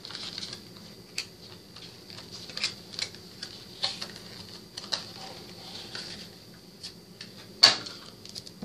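Light clicks and crinkles of a trading card deck's plastic-and-cardboard packaging and cards being handled, with a sharper crinkle near the end, over a faint steady high-pitched whine.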